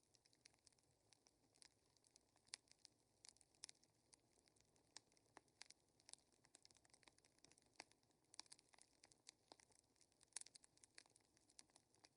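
Faint fire crackling: small sharp pops and ticks at uneven intervals, a few each second, over a soft hiss.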